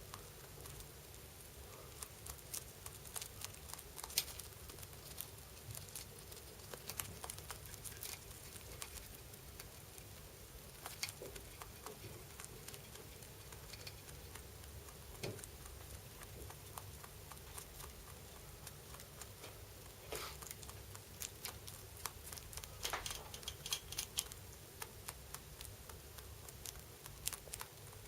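Pet rabbit chewing: quiet, crisp crunching clicks that come irregularly in short runs.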